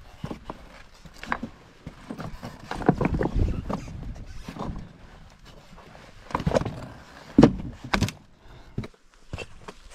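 Footsteps with irregular scuffs, knocks and thuds, with no engine running. The loudest thud comes about three-quarters of the way through.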